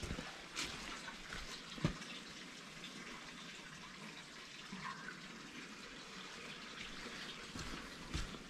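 Steady hiss of running water, with a couple of faint thumps of footsteps on the path near the start.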